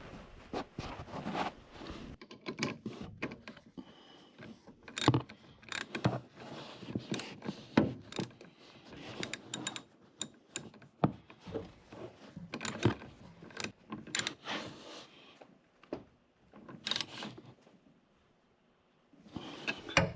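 Ratchet wrench clicking in irregular runs of short strokes, tightening the 16 mm nut that holds a wiper arm on its shaft, with a pause near the end.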